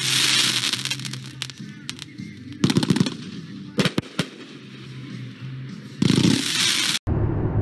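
Consumer fireworks cake, the Comet Apocalypse, firing: hissing, crackling shots with several sharp reports in the middle. It cuts off suddenly near the end.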